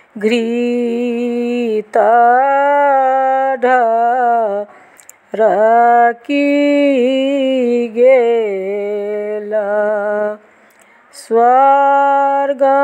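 A woman singing a Maithili upanayan (sacred thread ceremony) folk song, unaccompanied, in long held phrases with two short breaks for breath.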